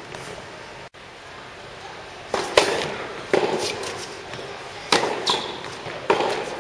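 Tennis rally on an indoor court: a ball struck by rackets and bouncing on the court, making sharp pops roughly every second from about two seconds in, each echoing in the large hall.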